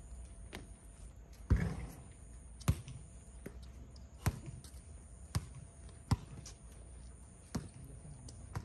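A basketball bouncing on an outdoor hard court: a series of sharp thuds at uneven intervals, about eight in all, the loudest about one and a half seconds in.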